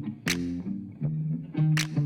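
Background music: plucked guitar notes changing every half second or so, with a couple of sharp accented strokes.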